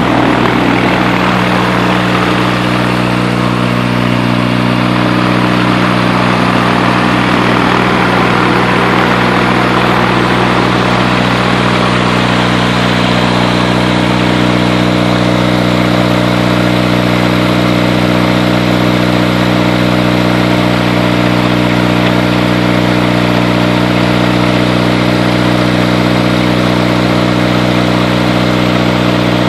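Viking 130 hp four-cylinder aircraft engine running steadily on the ground with its propeller turning, a constant even engine note without changes in speed.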